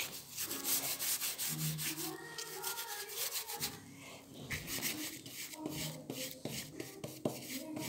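Brush scrubbing acrylic paint onto a painting's surface in quick, repeated rubbing strokes.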